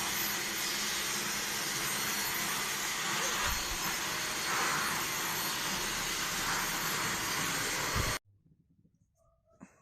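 Deerma DX115C handheld stick vacuum cleaner running steadily with a rushing motor-and-airflow noise. It stops abruptly about eight seconds in, leaving near silence.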